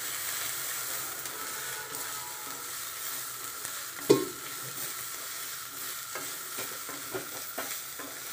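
Chopped leafy greens and chillies sizzling in oil in a metal kadai, stirred and scraped with a wooden spatula. There is one sharp knock against the pan about four seconds in, and a few lighter knocks later on.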